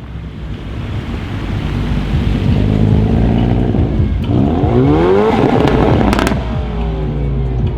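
Hyundai i30 N's turbocharged four-cylinder with an Akrapovic exhaust, running low and steady, then revving: the engine note climbs sharply about four seconds in and falls away. A short burst of sharp exhaust crackles comes just after the peak.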